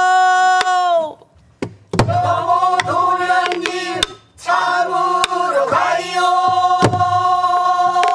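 Namdo folk-style singing: long, wavering held notes that break off about a second in and again near four seconds, then one long held note. A buk barrel drum is struck a few times with a wooden stick.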